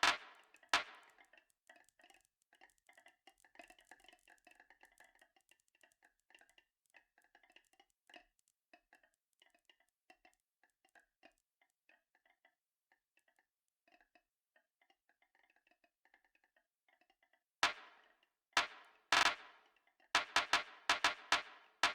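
Marbles rolling and clattering down a marble run track: a long stretch of faint, quick rattling, then a burst of loud clacks a few seconds before the end.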